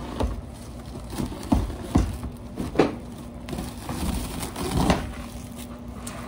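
Plastic cling film crinkling and stretching as it is pulled over and wrapped around a sheet tray, with several sharp knocks of the tray against the counter. A steady low hum runs underneath.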